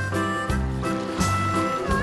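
Background music with a steady beat and a bass line that changes notes in a regular rhythm.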